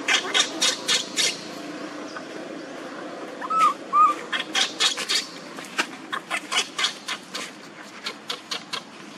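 Baby macaque crying in runs of short, high-pitched screeching cries, several at about four a second, with two short rising-and-falling squeals about three and a half seconds in.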